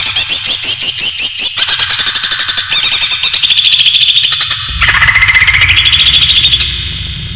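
Greater green leafbird (cucak ijo) calling, played as a trapping lure: rapid chattering runs of short, high chirps. The phrases change abruptly every second or two, and one sweeps upward in pitch.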